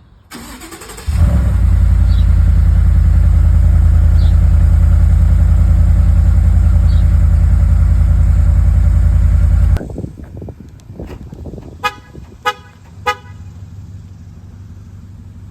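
2018 Ford F-150's 5.0 V8 starting and idling loud and deep through a new exhaust with no muffler, a straight pipe that dumps under the cab. The engine sound cuts off suddenly, and three short beeps follow.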